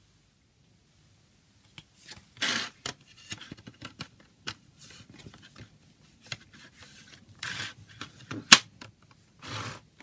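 Hands handling a CD booklet and a plastic jewel case on a table: scattered rubbing and scraping with small taps. Near the end comes one sharp plastic click, the loudest sound, as the jewel case is snapped shut.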